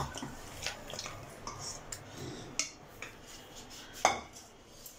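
A spoon scraping and clinking against a kadhai as curry is scooped out and served into a bowl: a string of light clinks, with one louder clink about four seconds in.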